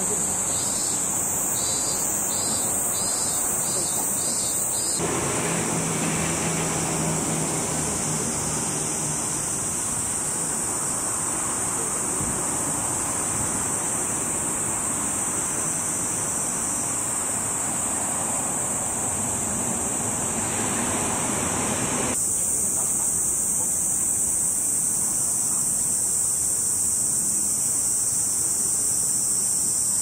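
Steady high-pitched chorus of cicadas droning without a break. A broad rushing background noise comes in about five seconds in and drops away about twenty-two seconds in.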